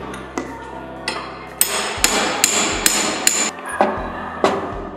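Hammer striking a steel punch to knock the spring pin out of a pallet truck's handle shaft: a run of about nine metallic blows, roughly two a second, each with a short ring.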